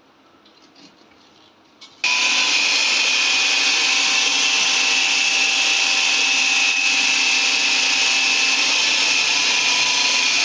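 Preethi food processor's motor switched on about two seconds in, then running steadily with a high whine as it shreds cabbage pushed down the feed tube.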